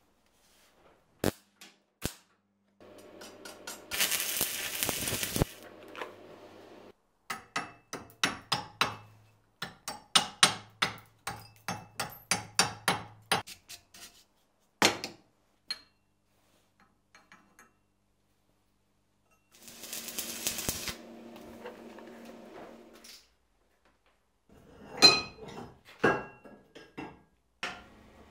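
Metalworking in a steel workshop: short stretches of MIG welding crackle, separated by runs of sharp metallic clicks and knocks, with a few louder strikes on steel near the end.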